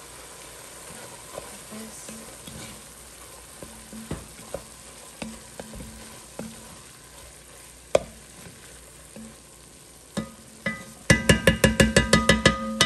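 Sausage and onion sizzling faintly in an enameled cast-iron Dutch oven while a wooden spoon stirs them, knocking against the pot now and then. Near the end the spoon raps the pot about a dozen times in quick succession, each tap ringing.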